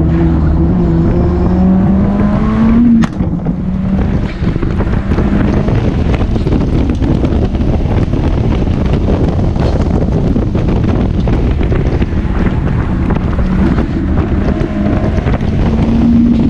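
Turbocharged Mazda MX-5 1.8 four-cylinder (BorgWarner EFR6258 turbo) pulling hard under full throttle, its note rising for about three seconds before a short break for a gear change. The engine then runs on under a heavy rush of wind through the open cockpit at high speed, and its note rises clearly again near the end.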